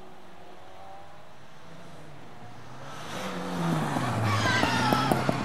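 Rally car engines at a chicane: a faint engine note at first, then about three seconds in a car comes close and loud, its engine pitch dropping as it takes the turn. A run of sharp cracks follows near the end.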